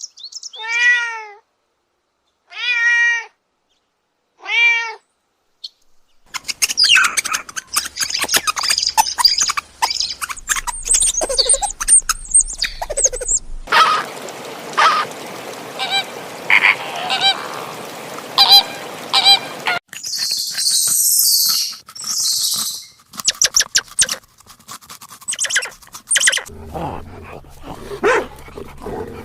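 A cat meowing four times, about two seconds apart, each call rising then falling in pitch. From about six seconds in comes a busy jumble of clicks, high chirps and hiss.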